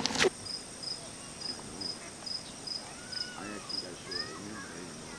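Crickets chirping at dusk: a high chirp repeating about twice a second over a constant, higher insect trill, with a few faint calls in the middle.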